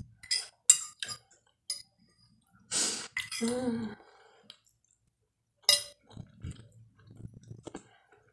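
Metal fork clinking and scraping on a glass plate, several sharp ringing clinks in the first two seconds and another a little past halfway, with a brief hum about three and a half seconds in. Soft chewing of rice and sausage fills the last few seconds.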